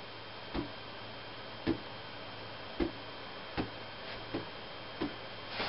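A latex balloon being batted up by hand to keep it in the air, each hit a short soft tap, about six of them roughly a second apart.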